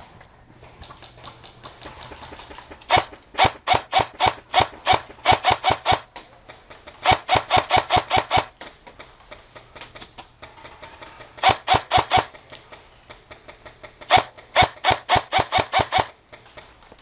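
Ares Amoeba AM-013 electric airsoft rifle firing rapid single shots, about four a second, in four strings of several shots each with short pauses between.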